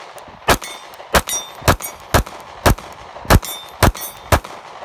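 Sig P365 9mm subcompact pistol firing eight shots in steady succession, about two a second, with a brief metallic ring after several of them. The pistol cycles every round without a stoppage while the shooter's thumbs press hard into the slide.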